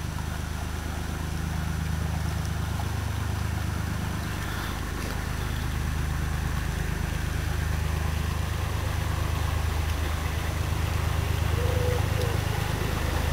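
Narrowboat engine running steadily at low cruising speed, a low even hum that grows louder as the boat comes close and passes.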